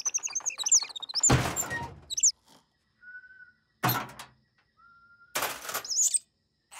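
Cartoon sound effects: a quick run of high squeaky chirps and clicks, with a heavy thump about a second and a half in. Two more thumps follow near the middle and near the end, with faint short whistle-like tones between them.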